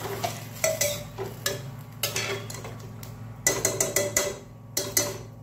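Metal ladle stirring a watery potato-and-pea curry in a pressure cooker, clinking against the pot's sides and rim, with a quick run of about five taps about three and a half seconds in.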